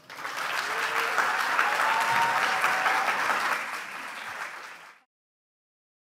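Audience applauding at the end of a talk, a dense even clapping that thins a little toward the end and cuts off abruptly about five seconds in.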